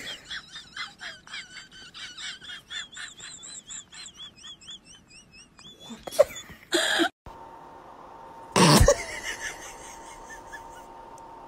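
A small dog whining over and over in a high, wavering pitch, about three or four cries a second, for some six seconds. This is followed by two short loud noises and a steady hum.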